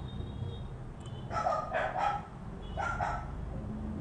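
A dog barking, three short barks about a second apart.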